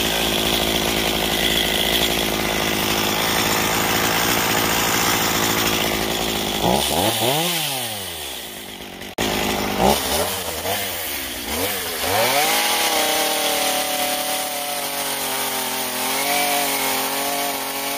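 Small carving chainsaw running: a steady run for the first several seconds, then the engine revs up and down a few times before holding a steadier speed in the last few seconds.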